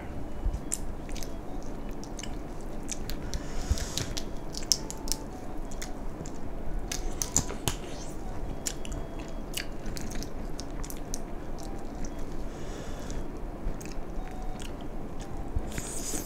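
Chewing and biting on mala-sauced crayfish, with frequent irregular sharp clicks and crackles.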